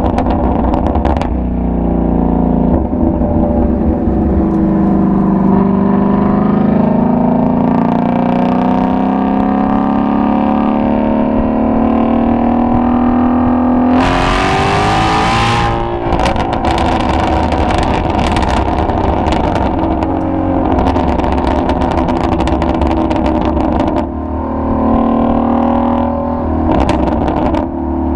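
Ford Shelby GT350's flat-plane-crank V8 exhaust pulling through a gear, its note rising steadily for about ten seconds. About halfway through comes a short loud rush of noise. Then the engine drops to a lower note full of rapid exhaust pops and crackles on the overrun, and settles into a steadier drone near the end.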